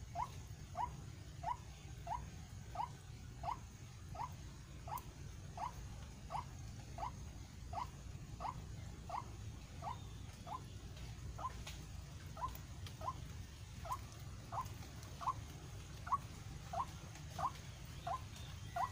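White-breasted waterhen giving its monotonous territorial call: a short rising note repeated steadily, about three notes every two seconds, over a low steady rumble.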